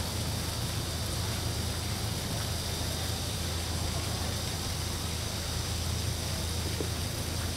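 Steady rumble and hiss of a moving vehicle heard from inside, with a constant low hum.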